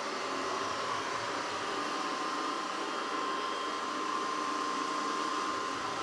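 SwitchBot K10+ Pro mini robot vacuum running, a steady whirring rush of its suction fan with a thin whine held on top.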